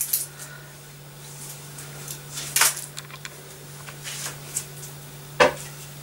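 Kitchen handling sounds: a few light clicks and knocks of utensils and crockery, with one sharper knock near the end, over a steady low hum.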